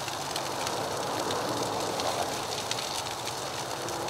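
Food frying in a Jiffy Pop foil popcorn pan on a portable camp stove: a steady sizzle with scattered crackles.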